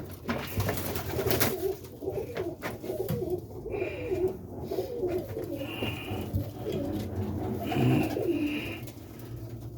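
Several domestic roller pigeons cooing continuously in an enclosed loft, with a few sharp knocks or clatters about a second in.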